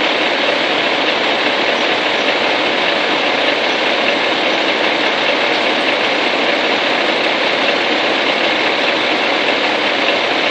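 Diesel engine of a Freightliner FLD112SD dump truck running steadily: a loud, even noise with no changes in pace.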